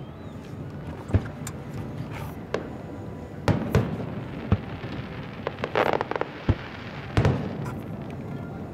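Aerial fireworks shells bursting: about seven sharp booms at uneven intervals, with a quick run of crackling pops about two thirds of the way through.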